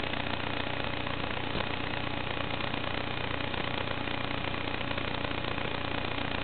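An FPV quadcopter's motors and propellers buzz steadily in flight, picked up over the analog video link with heavy hiss.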